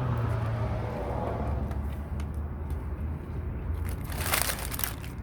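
A person biting into and chewing a toasted bagel sandwich with steak, egg and cheese, with a louder crunching burst lasting about a second near the end, over a steady low hum.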